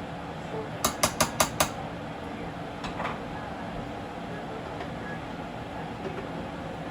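A utensil knocked against dishware five times in quick succession about a second in, then once more faintly, over a steady background hum.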